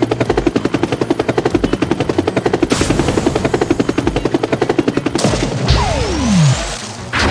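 Cartoon sound effect of a rapid, even mechanical rattle or chopping that stops about five seconds in, over background music. A falling whistle-like glide follows about a second later.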